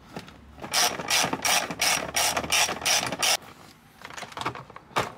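Ratchet wrench clicking as it turns a bolt, in an even run of about four strokes a second that stops after roughly two and a half seconds, followed by a few lighter clicks near the end.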